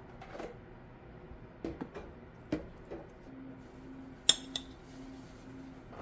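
Metal spoon clicking and scraping as kimchi is spooned onto seaweed on a plastic cutting board, with a few soft taps and one sharp clink about four seconds in.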